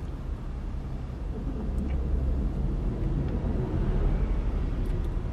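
Steady low rumble of car engines and street traffic heard from inside a car's cabin.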